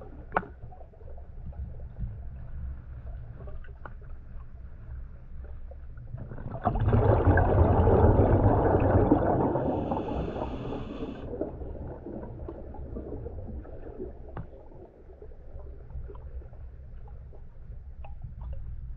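Underwater sound through a camera housing: a low rumble with small clicks, and a rush of a scuba diver's exhaled bubbles from the regulator for about three seconds, starting about seven seconds in.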